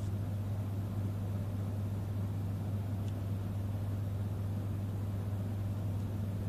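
Steady low hum with a faint even hiss, like a fan or appliance motor running.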